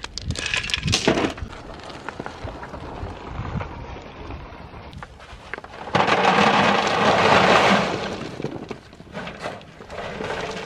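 A steel shovel scraping into large gravel and tossing it with clinks, then a wheelbarrow load of large gravel tipped out about six seconds in, the stones pouring and rattling for about two seconds, the loudest part. Scattered stone clacks follow.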